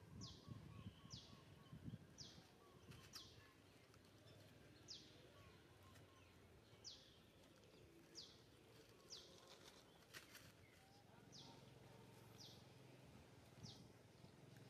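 Faint bird calling over and over: a short, high note falling in pitch, about once a second.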